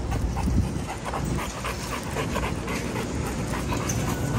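A dog panting hard, quick short breaths at about four a second.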